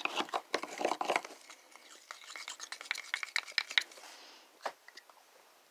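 Wooden craft stick stirring and scraping thick washable paint inside a plastic paint bottle: a quick run of scrapes and clicks that thins out after about a second. A few light taps and knocks from handling the bottle follow.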